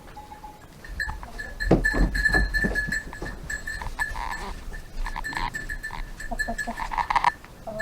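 Goats bleating a few times over a low rumble.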